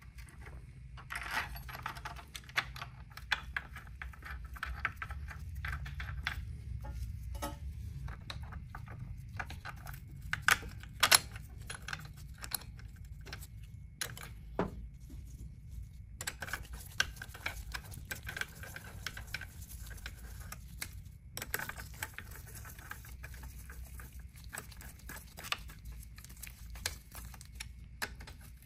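Scattered metal clicks and clinks of bolts, spacers and hand tools being handled and worked on a dirt bike's motor mounts, with one sharper knock about eleven seconds in.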